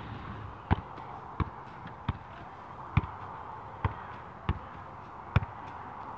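Soccer ball being juggled: seven sharp touches off head, thigh and foot, about one every 0.7 s, over a steady background hiss.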